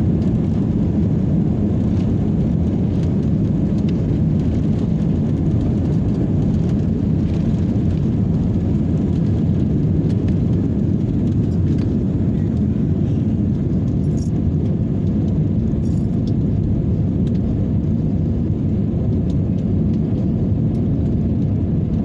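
Airliner noise during takeoff: a steady, loud, low rumble of engines and rushing air that holds an even level throughout.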